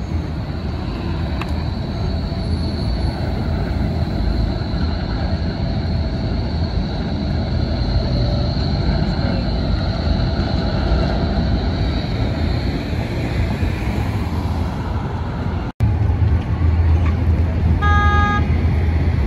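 City street traffic noise with a Bombardier Flexity tram rolling and curving through an intersection, a thin high whine running along for most of the first part. About 16 seconds in the sound changes abruptly to a louder low rumble of street noise, and near the end comes one short pitched beep.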